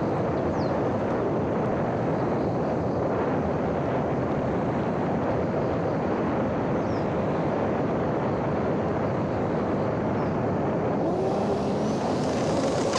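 A homemade electric RC airplane in flight, heard as a steady rushing drone of airflow and wind. About eleven seconds in, the sound turns brighter and hissier.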